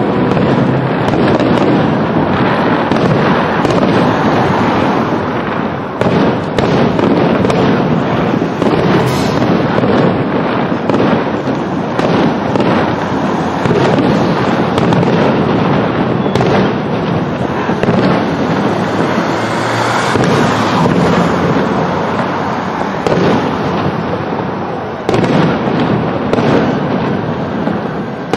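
Aerial firework shells bursting in a dense, continuous barrage of bangs, one on top of the next with no pause.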